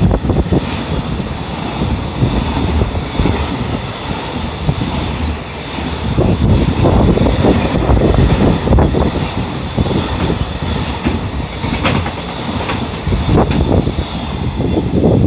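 Freight train of container wagons rolling past close by: a steady loud rumble of steel wheels on rail, with scattered sharp clicks from the wheels.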